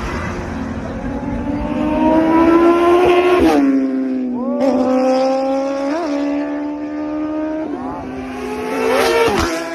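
Kawasaki superbike's inline-four engine revving hard: the pitch climbs for about three seconds, drops sharply, then holds steady with a few quick throttle blips.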